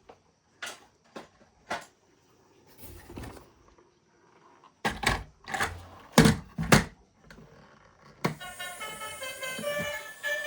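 Handling noise: a few short sharp clicks, a brief rustle, then a cluster of louder knocks about five to seven seconds in. Background music starts about eight seconds in.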